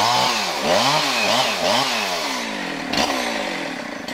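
Chainsaw cutting through the base of a large maple trunk, its engine pitch rising and falling several times in the first two seconds as it revs and labours in the cut. A short sharp knock about three seconds in, after which the saw runs steadier and softer.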